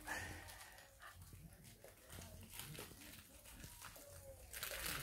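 A Maine Coon cat mouthing and chewing a new toy, making faint unappetising wet mouth noises and small cries. A rustling starts near the end.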